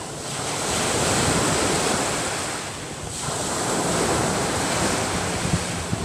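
Small waves breaking and washing up a sandy beach, the surf swelling twice. Wind rumbles on the microphone toward the end.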